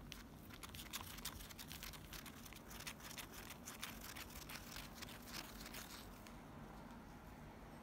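Natto being stirred vigorously in its polystyrene foam tray: a rapid run of small clicks that stops about six seconds in.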